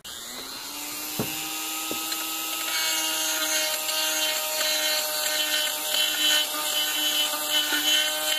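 Handheld variable-speed rotary tool (Dremel-type) spinning up and running at a steady whine while grinding out the bottom-metal inlet of a Bell and Carlson composite rifle stock, widening it for larger bottom metal. Two light ticks come in the first two seconds, and the grinding grows louder from about three seconds in as the bit bites into the stock.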